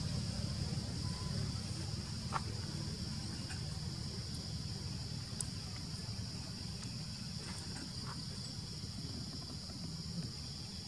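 Insects droning steadily at a high, even pitch, over a low steady rumble, with a few faint clicks.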